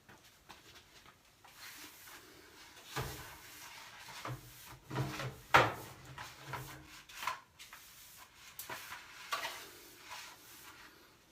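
Irregular rubbing and scraping with scattered knocks and clicks, from a metal dryer vent piece being handled and cleared of lint by hand. The sharpest knock comes about halfway through.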